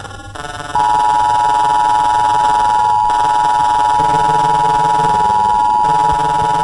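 Emergency Alert System attention signal: a loud, steady two-tone alarm tone (853 and 960 Hz together) that starts about a second in and holds without a break, over a low droning background.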